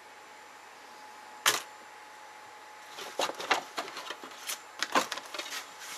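Small tools and parts handled on a workbench: one sharp click, then from about halfway a flurry of irregular clicks and light knocks as things are picked up and moved about.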